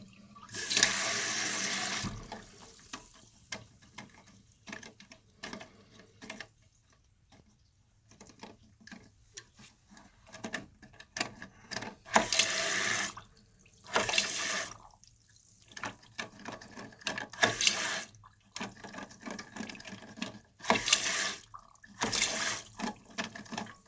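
Toilet tank ball cock fill valve letting water rush in with a hiss in short bursts, about seven times, cutting off in between, while the float is set so the tank fills to the line. Small clicks and knocks of handling in the pauses.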